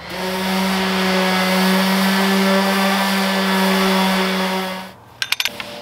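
Jobsite table saw running and cutting a plywood panel: a steady motor hum with the blade's hiss, stopping abruptly about five seconds in. A few sharp clicks follow near the end.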